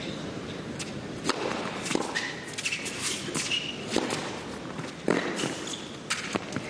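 A tennis rally between Roger Federer and Jarkko Nieminen: sharp racket-on-ball strikes and ball bounces less than a second apart, with tennis shoes squeaking on the court in between, while the crowd stays quiet.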